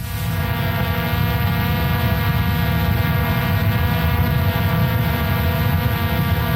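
DJI Phantom 4 quadcopter's motors and propellers humming steadily at a constant pitch, with a rough low rumble underneath.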